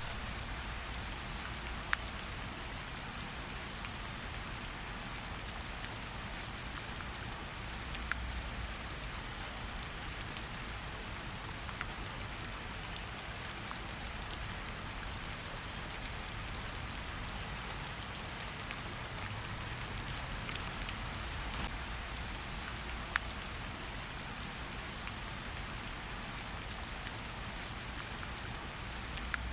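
Steady heavy rain falling on a surface: an even hiss with occasional sharper, single drop ticks.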